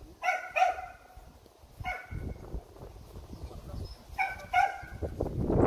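Dog barking in short, high-pitched barks: a quick pair just after the start, a single bark about two seconds in, and another pair about four seconds in. A rushing noise builds up near the end.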